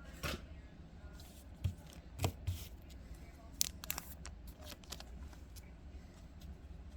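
A trading-card booster pack and its cards being handled: scattered crinkles and clicks of the foil wrapper and card stock, with a few sharper snaps about two and three and a half seconds in.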